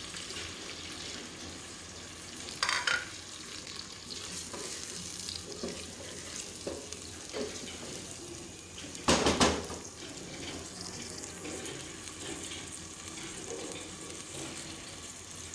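Sliced onions sizzling as they fry in hot oil in an aluminium pressure cooker, stirred with a wooden spoon that scrapes and knocks against the pot. Two louder clatters stand out, about three seconds in and, loudest, about nine seconds in.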